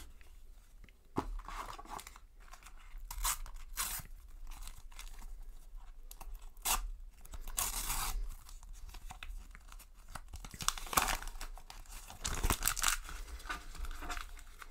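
A Panini sticker packet being torn open by hand, its wrapper crinkling, with the stickers inside rustling as they are pulled out. It comes as short, irregular spells of tearing and rustling.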